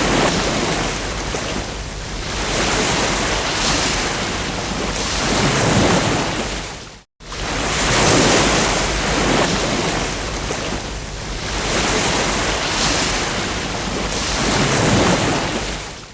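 Ocean surf breaking on a beach: a hiss of water that swells and fades with each wave every couple of seconds. The sound cuts out for a split second about seven seconds in.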